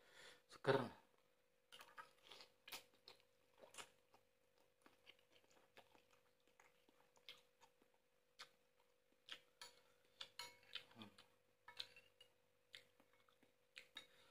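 A person eating boiled noodle soup: one loud slurp of noodles about a second in, then quiet chewing and mouth sounds with scattered short clicks. A faint steady hum runs underneath.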